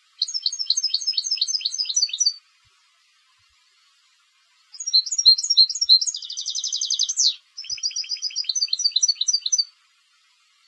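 A competition European goldfinch singing: a two-second run of quick, high twittering notes, a pause, then a longer phrase of twitters broken by a fast trill in the middle and carrying on into more twittering.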